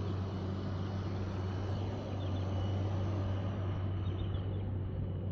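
Engine running steadily at an even, unchanging pitch, with a few faint bird chirps above it.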